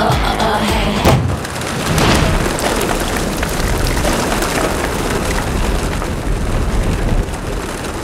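A sudden thud about a second in, then a flock of pigeons taking off, their wings flapping in a dense clatter that slowly thins out.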